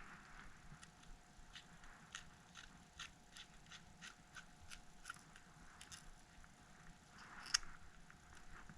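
Faint, irregular small clicks and light scraping of a screwdriver worked against an iPhone 6S's internals, winding a stuck battery adhesive pull tab around its shaft, with one sharper click near the end.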